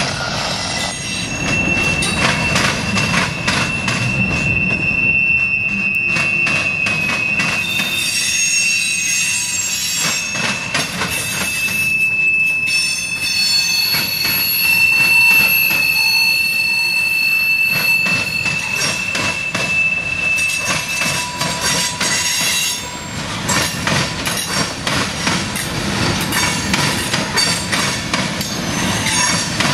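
Freight cars of a CSX train rolling over a railroad diamond crossing: a steady clatter of wheels hitting the rail gaps, with a high wheel squeal held from a second or two in until about 21 seconds, and thinner, higher squeals above it in the middle stretch.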